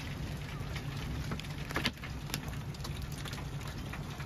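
Rain and hail hitting the chase vehicle: irregular sharp ticks over a steady low hum, with a louder cluster of hits just under two seconds in.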